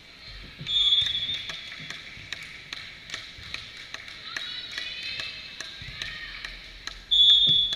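Volleyball referee's whistle, two short steady blasts: one about a second in and one near the end as the server waits with the ball, the signal to serve. Scattered sharp taps and knocks of ball play and gym noise in between.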